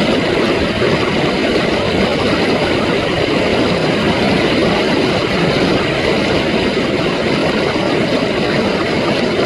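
Rushing water played backwards: a steady, even rush with most of its weight low in pitch.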